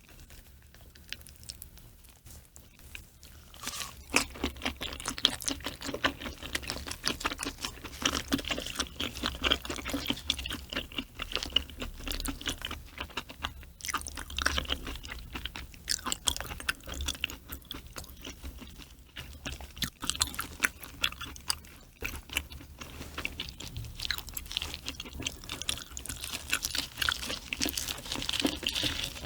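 Close-miked chewing of raw mackerel sashimi with green onion kimchi. It is quiet at first, then from about four seconds in comes a dense run of wet clicking and crunching mouth sounds.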